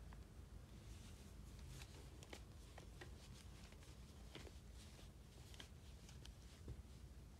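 Near silence: faint rustling and a few light clicks from hands handling a plush Furby Baby toy.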